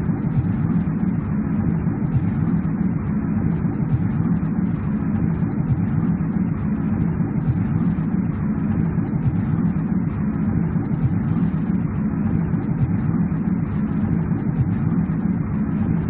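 Steady, unchanging low rumbling noise with a fainter hiss above it: a looped snowy-forest ambience.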